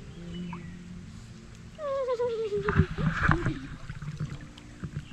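A single wavering cry, about a second long, sliding down in pitch, followed by a short, louder burst of splashing water.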